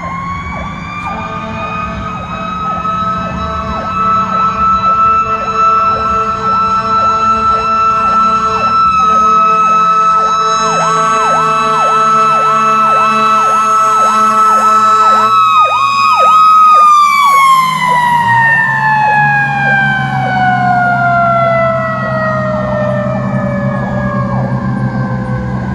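Fire engine sirens at full volume: a Federal Q2B mechanical siren is held at top pitch, then winds down slowly over the last several seconds. Under it an electronic siren cycles rapidly and a steady air-horn chord sounds until about two-thirds of the way through, with a brief break partway. The low rumble of the truck's Detroit Diesel 8V71 engine runs beneath.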